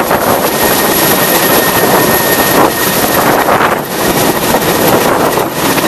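Mil Mi-171 twin-turbine helicopter hovering overhead: loud, steady rotor and turbine noise.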